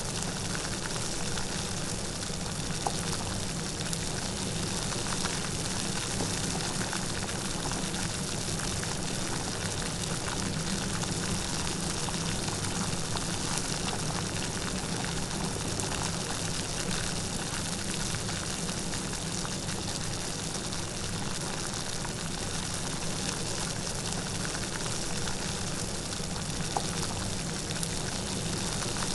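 Steady light rain falling, an even hiss of drops with a few faint individual drips.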